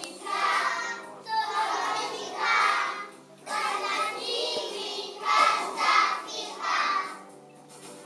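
A group of young children singing together in phrases, with a short break a little past three seconds in and another near the end.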